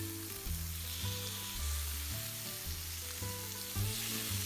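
Beef entrecôte pieces sizzling as they sear over high heat on a ridged grill pan, with soft background music underneath.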